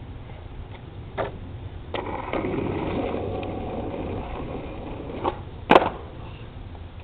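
Skateboard pushed off and rolling on asphalt, its wheels making a steady rolling noise after a couple of knocks of the board. Near the end comes one sharp, loud clack of the deck on the pavement as the rider crouches into a trick attempt.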